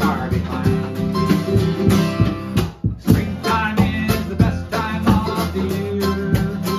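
Acoustic band playing an instrumental passage in a country-bluegrass style: strummed acoustic guitar, picked mandolin and drums with cymbal. All the instruments drop out briefly a little under halfway through, then come back in together.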